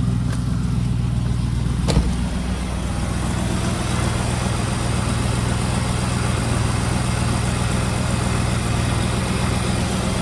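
Rover SD1 Vitesse's 3.5-litre V8 idling steadily, with a single sharp knock about two seconds in.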